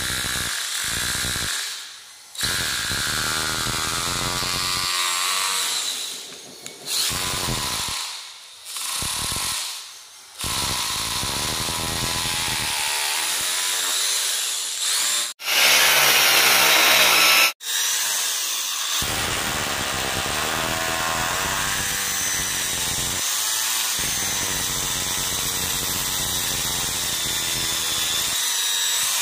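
Electric drills boring holes into a cement-plastered masonry parapet for railing base plates. A cordless drill runs in repeated bursts of a few seconds each, a louder run follows about halfway through, and then a corded drill runs without a break over the second half.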